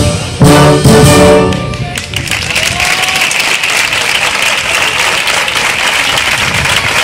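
Brass-heavy concert band plays the final chords of a pasodoble, cutting off about two seconds in. The audience then breaks into steady applause.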